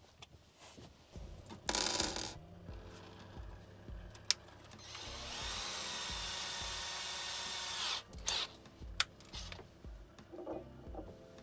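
A cordless drill runs steadily for about three seconds in the middle, then stops, followed by a few sharp handling clicks. A short loud rasp comes about two seconds in.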